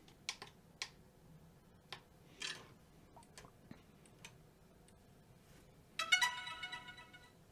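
A few light clicks and a brief rustle of handling, then, about six seconds in, a short electronic chime of several steady tones that fades out over about a second and a half.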